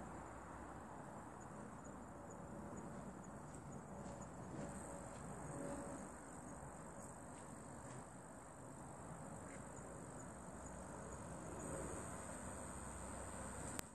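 Insects trilling: a steady, high-pitched buzzing over a low background hiss, with one sharp click near the end.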